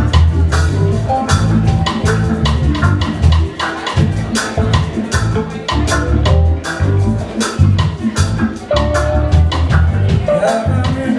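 Live reggae band playing: electric bass, drum kit, electric guitars and keyboard, with a strong bass line under a steady drum beat.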